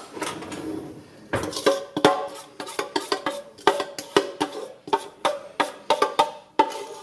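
Background music: quick, evenly spaced percussive notes with a pitched, wood-block-like tone, about three to four a second. The notes start about a second in and stop shortly before the end.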